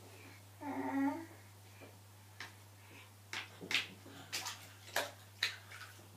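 A short voiced sound about a second in, then a string of about seven sharp splashes and knocks as a baby's hands slap the bathwater and an orange plastic bowl in the tub.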